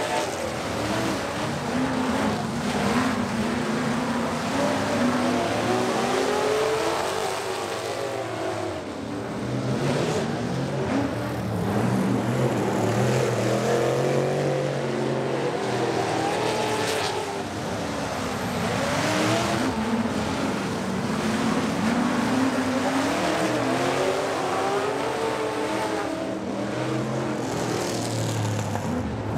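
Several dirt-track race pickup trucks running hard around the oval, engines revving up and down as they pass and take the turns. Many engines overlap, their pitches rising and falling throughout.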